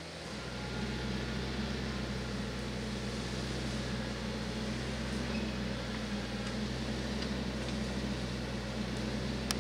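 TYM T474 compact tractor's diesel engine running at a steady speed, an even low hum that gets louder within the first second and then holds steady.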